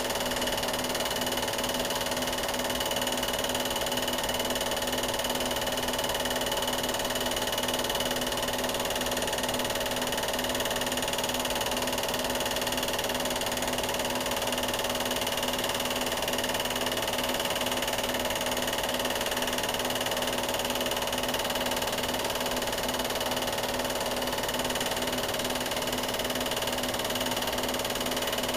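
Steady hum and hiss with several constant tones, unchanging throughout, with no separate events.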